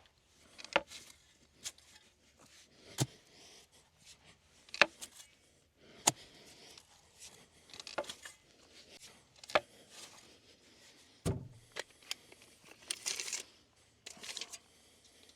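Scattered sharp clicks and knocks of hand tools working in a post hole, with a duller thud about eleven seconds in and scraping, rustling dirt near the end.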